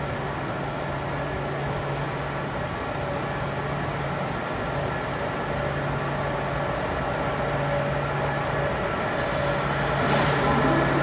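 Rail engineering train for overhead cable maintenance moving slowly into a station, its engine giving a steady low hum that grows louder as it approaches. Near the end, as it draws alongside, a hiss and a brief high squeal come in.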